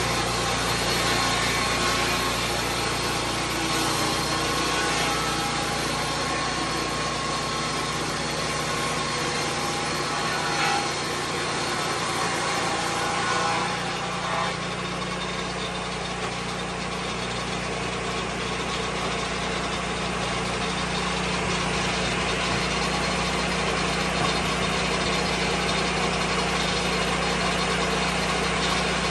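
Engine of a Lucas Mill 10-30 swing blade sawmill running steadily, its note shifting about halfway through.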